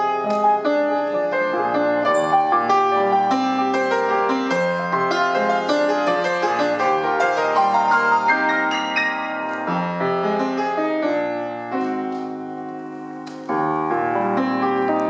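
Grand piano played solo with full, dense chords. The playing softens around three-quarters of the way through, then comes back suddenly loud with low bass notes.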